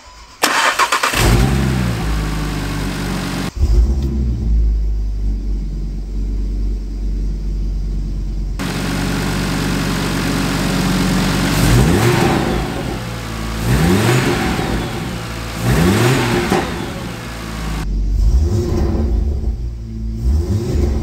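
Audi RS3 DAZA turbocharged 2.5-litre five-cylinder engine firing up on its first start almost as soon as it turns over, then running and idling. Several short revs come a little past the middle before it settles back to idle.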